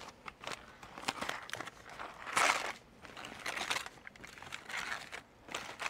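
Aluminium foil crinkling in irregular rustles as gloved hands pull open a foil wrap, the loudest rustle about two and a half seconds in.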